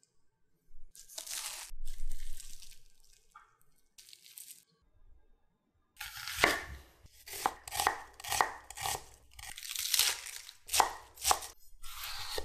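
Kitchen knife cutting through vegetables on a wooden cutting board: one longer cut about a second in, then from about six seconds a run of crisp cuts, roughly two a second.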